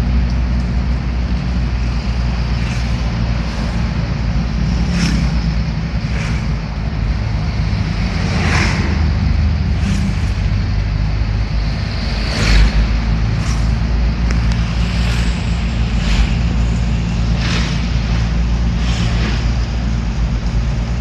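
Engine and road noise heard from inside a moving vehicle: a steady low rumble, with short whooshes of passing traffic every second or two.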